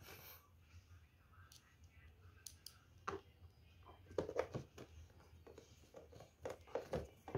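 Faint clicks, scrapes and light knocks of a screwdriver driving screws into the plastic bottom cover of an electric knapsack sprayer. The clicks come more often from about four seconds in.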